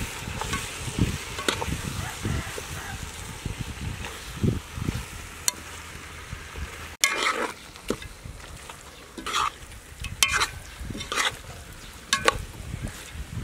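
A metal spoon stirring chunks of fish and thick spice paste in a large aluminium pot, with sharp scrapes and knocks of the spoon against the pot every second or two.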